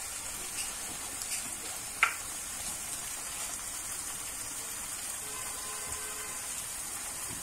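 Eggplant, mince and tomato stew sizzling steadily in a pot on the stove, with one sharp knock about two seconds in.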